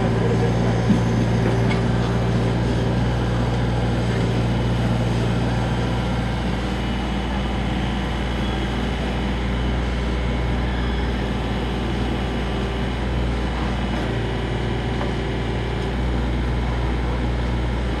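XCMG mini excavator running with a steady low hum while its arm digs and lifts soil.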